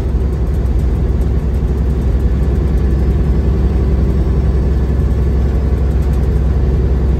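Semi truck's diesel engine and tyre noise heard from inside the cab while cruising on a snowy road: a steady, deep drone.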